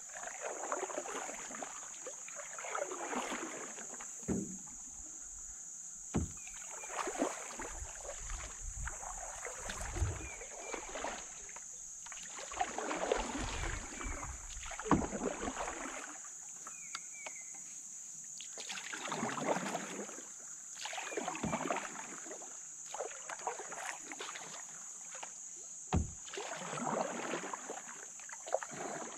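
Canoe paddle strokes: a swish of water with each stroke, repeating every few seconds, with a few dull knocks of the paddle against the canoe. A steady high-pitched whine runs underneath.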